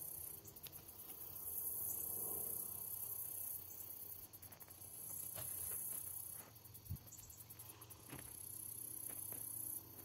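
Insects singing in a thin, very high-pitched pulsing chorus that swells and fades in stretches of a second or two, with a few faint clicks.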